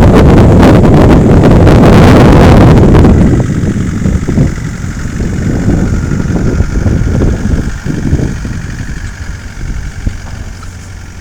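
Loud wind buffeting and rushing noise on the microphone for about the first three seconds. It then drops away to a vehicle engine running steadily at idle, fading slightly toward the end.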